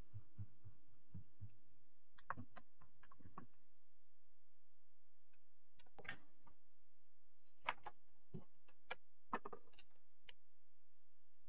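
Scattered light clicks and taps as a circuit board and small tools are handled and moved under the microscope: a group near the start, another about two seconds in, and single clicks from about six to ten seconds in. A low steady hum runs underneath.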